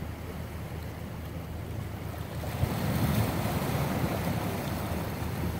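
Sea surf washing against shoreline rocks, with a wave surging up louder about two and a half seconds in and easing off. A steady low rumble of wind buffets the microphone throughout.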